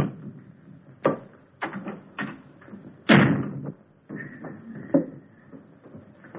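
A wooden door shutting with a bang, among several other sharp knocks and thuds.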